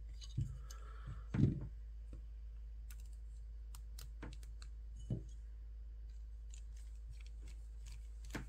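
Scattered small clicks and taps of screws, hardware and a hand driver while an FPV drone frame is screwed together by hand, with a few soft thumps, the loudest about a second and a half in.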